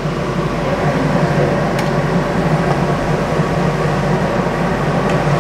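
Fish curry with coconut milk boiling hard in an aluminium pan on a gas stove: a steady, loud rush of bubbling over the constant hum of the kitchen.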